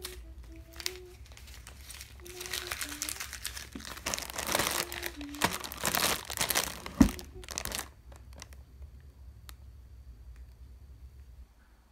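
Crinkling plastic wrappers of packs of seasoned laver (gim) being handled in their box, loudest from about two to eight seconds in, with one sharp knock near seven seconds, then quieter.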